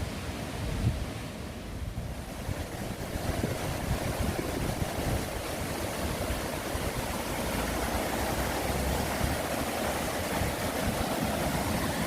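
Steady rush of flowing water from a stream or waterfall, growing a little louder, with wind buffeting the microphone.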